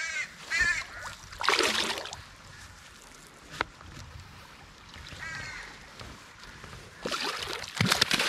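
A hooked salmon thrashing and splashing at the water's surface as it is played in to the bank, a burst about a second and a half in and louder, longer splashing from about seven seconds on. A bird calls a few short times near the start and once again midway.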